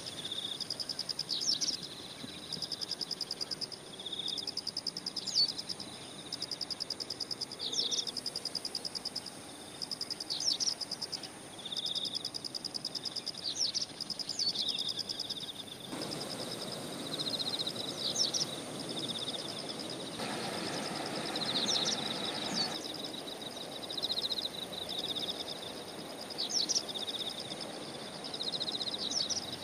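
Field insects chirping in fast, evenly pulsed trains over a steady high buzz, with a short high sweeping call every couple of seconds. About halfway through, a louder rushing background noise sets in.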